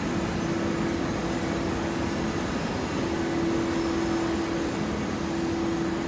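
TCM horizontal hydraulic hay baler running, with a steady mechanical drone. A steady whine drops out briefly about halfway through, then carries on.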